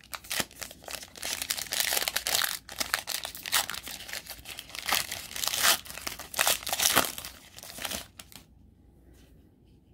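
Foil wrapper of a trading-card pack crinkling and tearing as it is ripped open by hand and peeled off the cards, in irregular crackles that stop about eight seconds in.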